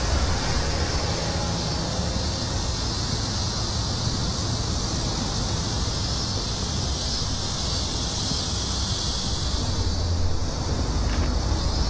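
Steady outdoor ambience: a high, even hiss with a low wind rumble on the microphone. The hiss thins out about ten seconds in.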